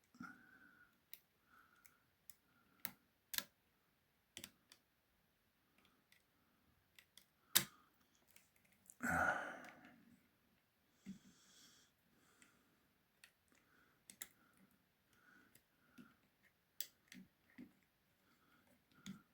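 Faint, scattered metallic clicks and scrapes of music-wire lever picks and a tension tool working inside an ERA 5-lever mortice lock, the sound of levers being lifted while picking. About nine seconds in there is one longer, louder rustle.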